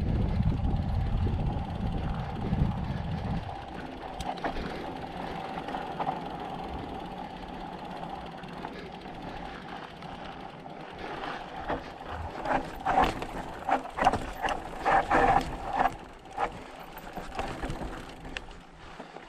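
Mountain bike in motion: wind rumble on the microphone for the first few seconds, then a steady hum as the bike rolls. In the second half come a quick run of rattles and knocks as the bike clatters over rough ground.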